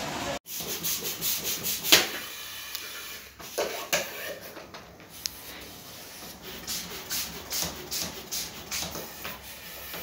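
Irregular rubbing and scuffing strokes, a few a second, typical of fingers and clothing brushing against a handheld phone's microphone while it films. One sharper scrape about two seconds in is the loudest.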